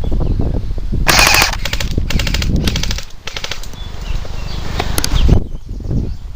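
Airsoft gun firing several rapid full-auto bursts, the first and loudest about a second in, more following up to about three seconds in.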